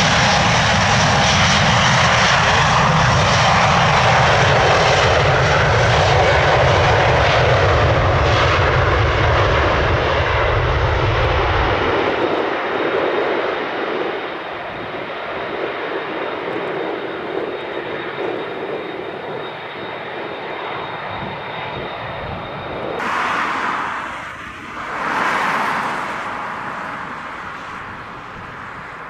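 Jet roar from an Airbus A330-800neo's Rolls-Royce Trent 7000 turbofans at takeoff power as the airliner rolls down the runway and lifts off. The deep rumble drops away suddenly about 12 seconds in, leaving a quieter engine roar with two brief swells of noise near the end.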